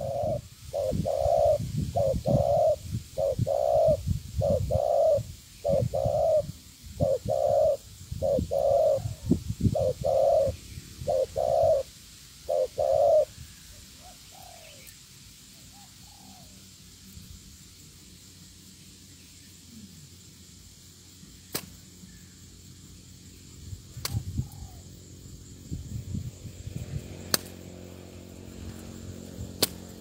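Spotted dove cooing: a steady run of about a dozen evenly spaced low coo notes, roughly one every two-thirds of a second, that stops about thirteen seconds in. A few fainter coos follow, then it falls quiet apart from a few sharp clicks.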